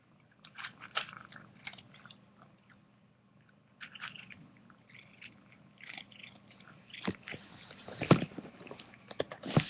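A cat chewing and crunching dry ferret kibble in irregular bites, denser and louder toward the end.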